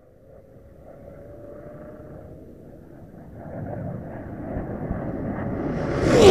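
Ford Lightning pickup's supercharged 5.4-litre V8 running hard as the truck comes down the runway from far off, growing steadily louder with a steady high note over the engine noise. It passes close near the end with a sudden drop in pitch.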